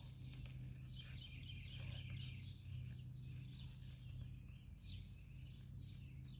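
Faint birdsong: many short chirps, over a steady low hum.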